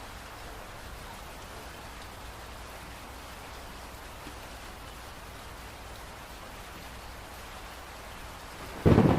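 Steady rainfall, an even hiss of falling rain. Just before the end, a sudden loud clap of thunder breaks in.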